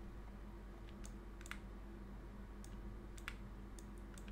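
A few sparse, faint clicks from working at the computer, over a steady low hum.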